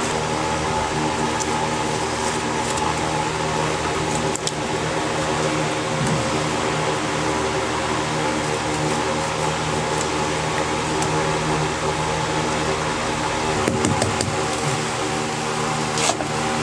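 A steady mechanical hum with several even, level tones, with a few light knocks about four seconds in, around fourteen seconds and near the end.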